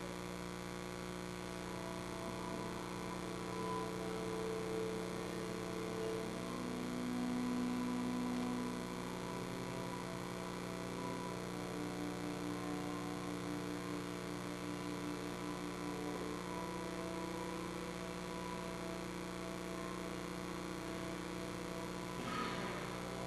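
Steady electrical mains hum, with a few faint held tones that come and go in the first half.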